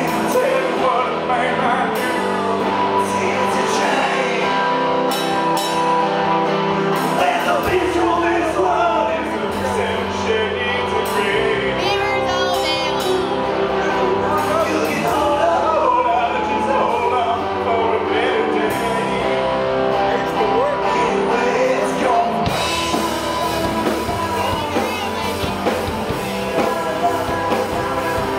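Rock band playing live: electric guitar and drums with cymbal hits under a man's lead vocal.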